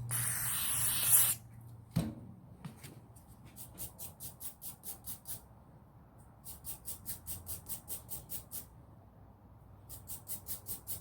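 A short burst of aerosol spray hissing, a click, then a small brush scrubbing the teeth of a ratchet's gear in three runs of quick strokes, about five a second.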